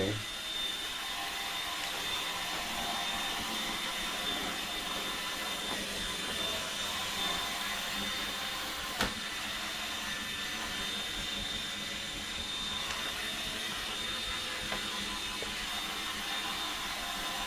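iRobot Roomba 870 robot vacuum running steadily, its motor and brushes giving a constant hum with a thin high whine, and a single sharp click about nine seconds in.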